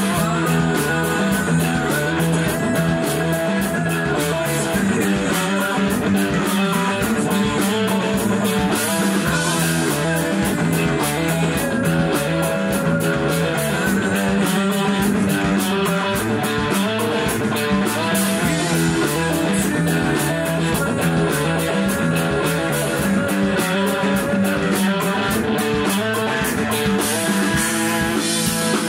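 A rock band playing live: distorted-free electric guitars strumming over a Mapex Saturn drum kit, with a steady beat of strikes and Zildjian cymbals washing over the top.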